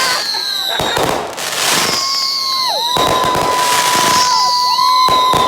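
Consumer fireworks going off in quick succession: three sharp bangs about two seconds apart, each trailed by crackling. High whistles slide down in pitch after the bangs, and a long steady whistle starts about three seconds in.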